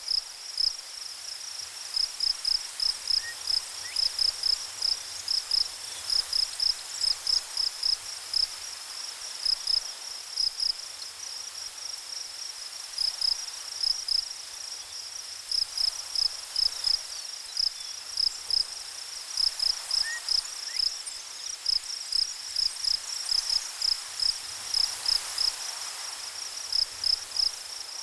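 Insect, likely a cricket, chirping in a high, steady pulse of several chirps a second, in runs broken by short pauses, over a faint steady hiss.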